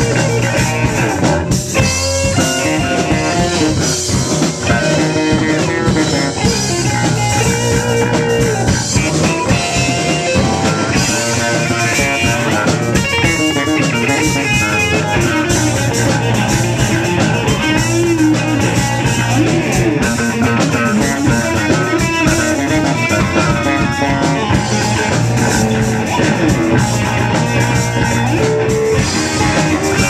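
Live rock band playing: electric guitar and electric bass over a drum kit.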